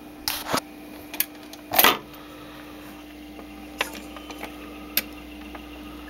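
Automatic record changer of a Columbia portable record player cycling: a string of irregular mechanical clicks and clunks, the loudest about two seconds in, as the record drops and the tone arm is set. A steady low hum runs underneath.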